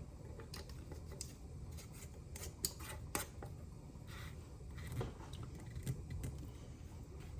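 Metal canning lid set on a glass quart jar and its screw band turned down, giving scattered small clicks and scrapes of metal on glass.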